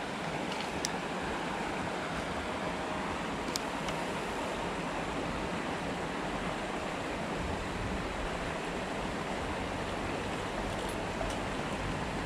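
Creek water running steadily over a small rocky riffle, an even rushing, with a few faint ticks.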